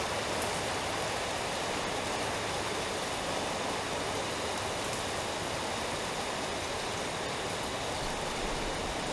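Steady heavy rain falling, an even hiss and wash of water.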